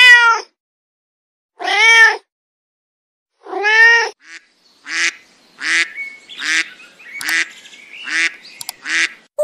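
A cat meows three times, about two seconds apart, each meow rising and then falling in pitch. From about five seconds in, a duck quacks six times at a steady pace.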